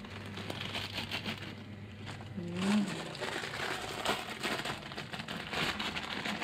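Plastic instant-noodle packets crinkling in hand over a pot of boiling water, with the water bubbling underneath. A low hum runs through the first couple of seconds, and a short voice sound comes about two and a half seconds in.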